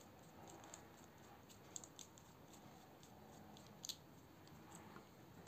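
Faint small clicks and ticks of a Torx bit driver backing a small screw out of a folding knife's handle scale, with a louder pair of clicks a little before four seconds in. It ends with a sharp knock.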